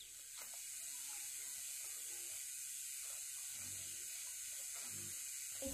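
A steady high-pitched hiss, with a few faint soft low rustles in the second half.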